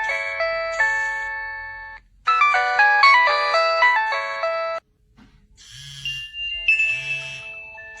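A mobile phone ringtone plays its short melody twice, then cuts off suddenly a little before halfway. A different ringtone with a low pulsing beat under chiming notes starts about a second later.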